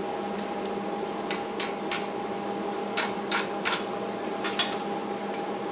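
Sharp metal-on-metal taps and scrapes from a hand tool knocking loose slag off fresh arc welds on steel bar, in irregular clusters, over a steady hum.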